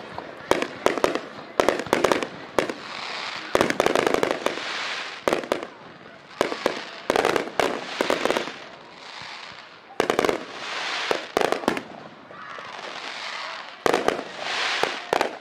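Aerial fireworks shells bursting one after another: clusters of sharp bangs and pops, alternating with stretches of crackle from the bursting stars.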